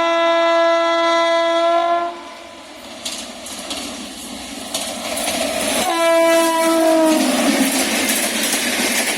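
A WAP-7 electric locomotive's horn sounds a long blast that cuts off about two seconds in, then the train's wheels clatter and rush past over the rails. A second, shorter horn blast comes about six seconds in and sags in pitch as it ends, and the rush of the passing train grows loud toward the end.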